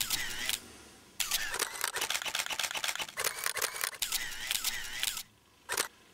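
Rapid bursts of camera shutter clicks, many in quick succession, broken by two short pauses.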